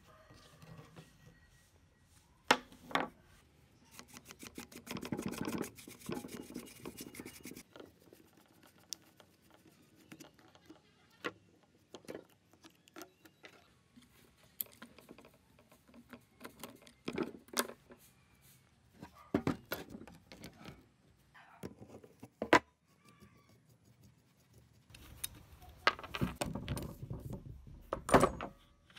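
Clicks, knocks and rattles of an old Makita 4100NB cutter's metal housing and parts being handled and taken apart on a wooden bench. A fast run of ticks comes a few seconds in, and a longer stretch of rubbing and knocking comes near the end.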